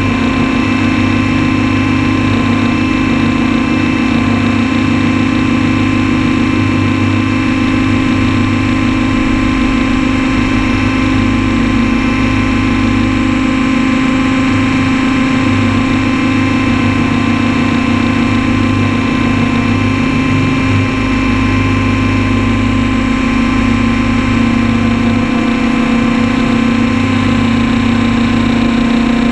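Electric motors and propellers of an RC multicopter heard from its onboard camera: a loud, steady hum of several tones, with the main tone shifting a little in pitch near the end as the craft banks into forward flight.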